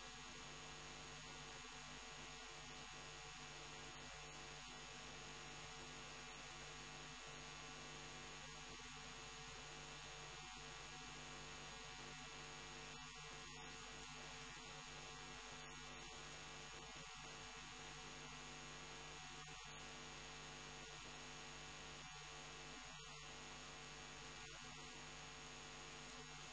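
Faint, steady electrical hum with hiss.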